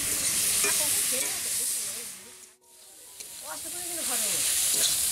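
Bathua saag (leafy greens) sizzling and steaming in a hot iron kadai as it is stir-fried with a metal spatula, a steady hiss. The sound drops away briefly about halfway through, then picks up again.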